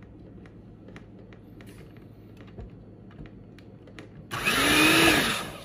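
Electric hand mixer running briefly in thick batter: after a few faint taps, it whirs loudly for about a second, its pitch rising and then falling as it speeds up and slows.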